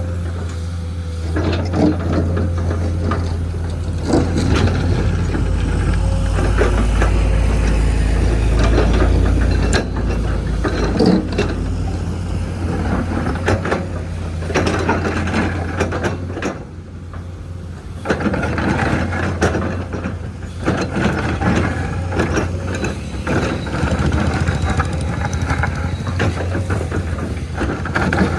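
Heavy diesel construction machinery running at a blacktop road job: a steady low engine drone with metallic clanking and rattling over it, easing off briefly about two-thirds of the way through.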